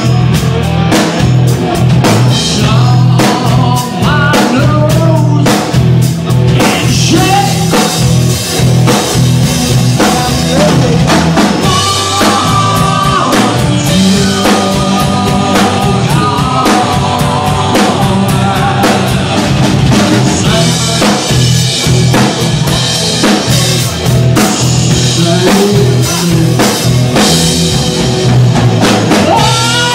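Rock band playing live: drum kit and electric guitar over a steady beat.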